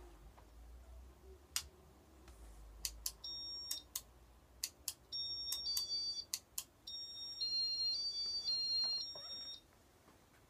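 Casablanca Inteli-Touch W11 control clicking and beeping as the Venus ceiling fan's light and motor are switched on. About ten sharp clicks are mixed with three short runs of high beeps that step up and down in pitch. The longest run comes near the end and cuts off suddenly.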